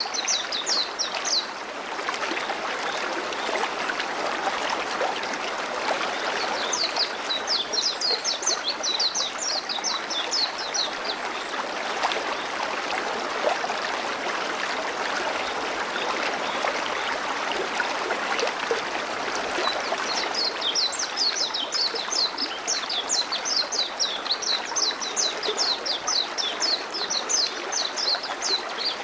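River water running steadily over stones. Runs of rapid, high chirping come in over it at the start, again about a quarter of the way in, and from about two-thirds of the way in.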